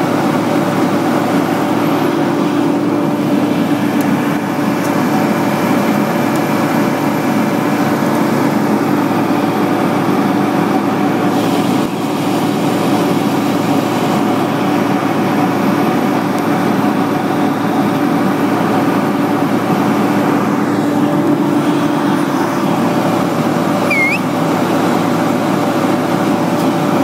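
Diesel engines of a curb slipform machine and a ready-mix concrete truck running steadily at work, a loud, unbroken drone.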